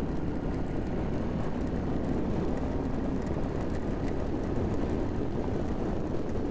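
Royal Enfield Meteor 350's 349 cc single-cylinder engine running steadily as the motorcycle cruises along the highway.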